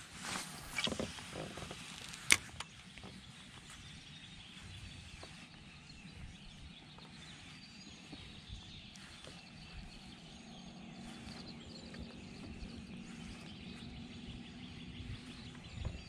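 Quiet outdoor ambience with a few brief handling noises in the first couple of seconds, the loudest a single sharp click, then a faint low hum in the second half.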